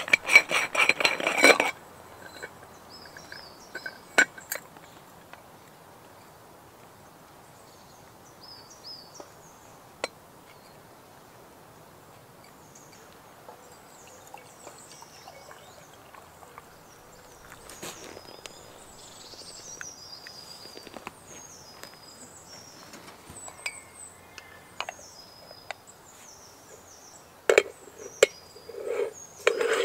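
Quiet outdoor background with small birds chirping in short, high, falling notes, broken by scattered sharp clinks and knocks; a loud rattling clatter opens it and a cluster of knocks comes near the end.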